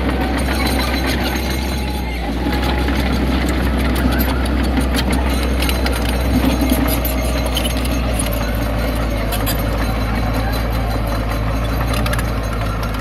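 Heavy diesel earthmoving machinery running steadily with a deep, even engine note, over frequent sharp clanks and rattles of rock and metal as rocky soil is unloaded and pushed.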